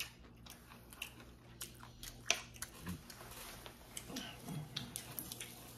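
Close-up eating sounds: a person chewing a mouthful of seasoned bean sprouts and rice, with wet mouth clicks and small sharp taps of a fork and chopsticks against the bowl. The sharpest tap comes about two seconds in.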